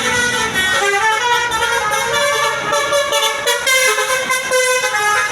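Basuri telolet musical horn on a tour bus playing a quick tune of stepped notes, each a held horn tone jumping to the next pitch.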